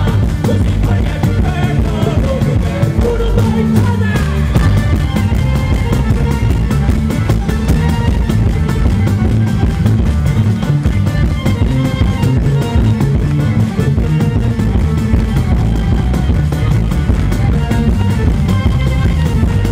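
Live pizzica band: a tamburello frame drum with jingles beats a fast, steady rhythm over guitars, the music running unbroken and loud.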